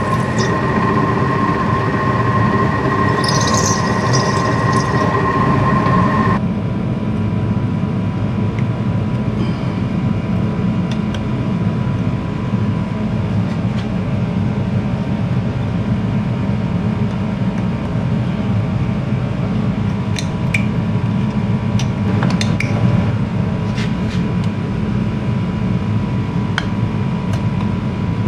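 Vertical milling machine spindle running with a drill bit in a broken-bolt hole in a cylinder head, a steady hum with a high tone that cuts off suddenly about six seconds in. A steady background hum carries on, with a few light metal clicks about three-quarters of the way through as the head is handled.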